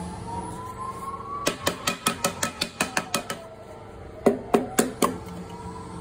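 A quick run of about ten sharp clicks, then four louder knocks about a quarter second apart, over a slowly rising and falling wailing tone.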